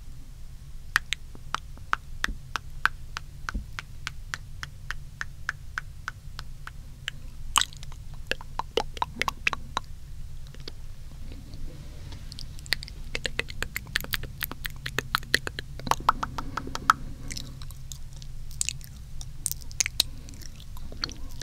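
Close-up wet mouth sounds: runs of sharp tongue clicks and wet smacks, with a steady run of clicks in the first several seconds and denser flurries later on.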